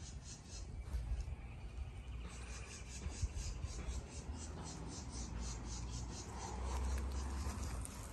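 Insects chirping in a steady pulsing rhythm, about three or four chirps a second, under a low uneven rumble that swells twice.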